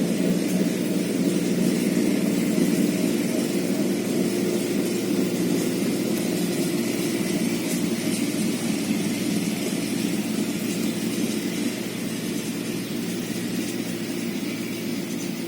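A motor engine running steadily with a low, even hum that eases off slightly over the last few seconds.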